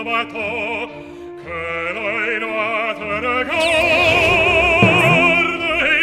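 Operatic singing with a heavy vibrato over orchestral music, growing louder and fuller about three and a half seconds in.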